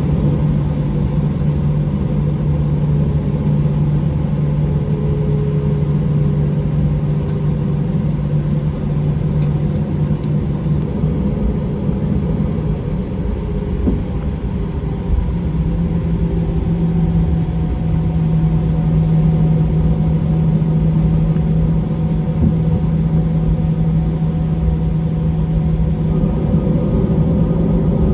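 Airbus A320 cabin noise with the jet engines running at low power: a steady rumble under a low hum that steps up slightly in pitch about halfway through.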